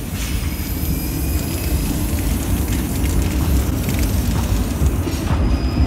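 Modern low-floor tram rolling past in a tunnel: a steady low rumble of wheels on rails, with a faint high whine over it.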